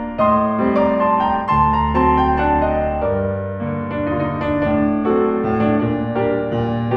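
Background music played on piano: a melody over held low notes.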